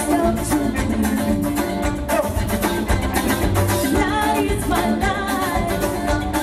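Live Latin-flavoured band music: timbales struck with sticks in a quick, steady rhythm over acoustic guitar and bass, with a man's voice singing from about halfway through.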